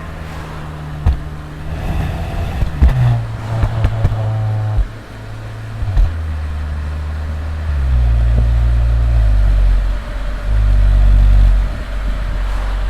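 Skoda Octavia RS engine and exhaust being revved in steps and held, with sharp exhaust pops and crackles between the revs from its anti-lag tune.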